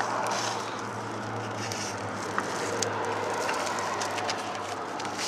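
Packaging being handled as a parcel is opened and searched: rustling with a few small clicks, over a steady low hum.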